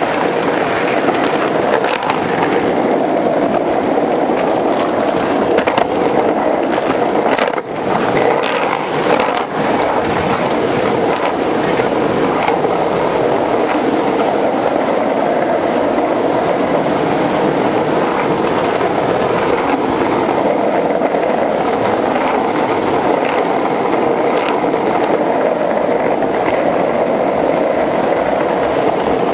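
Skateboard wheels rolling over a paved sidewalk, a steady rumble that dips briefly about eight seconds in.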